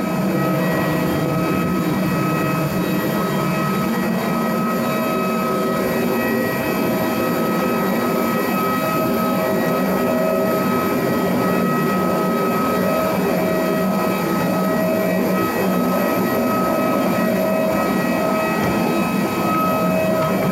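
A steady mechanical drone with several fixed whining tones, running without a break.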